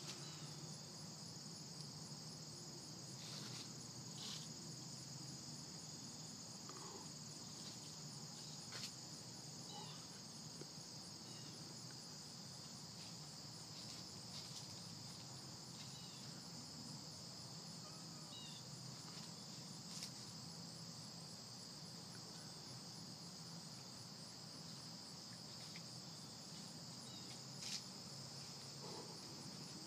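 A steady, high-pitched chorus of night-singing insects such as crickets, trilling without a break, with a few faint scattered clicks over it.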